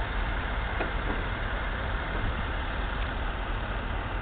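Sugar beet harvesting machinery running steadily: a heavy engine's continuous drone under a dense mechanical rumble.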